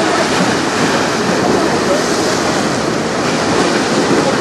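Steady rushing of river water with wind noise on the microphone: a constant, even wash with no distinct tones or knocks.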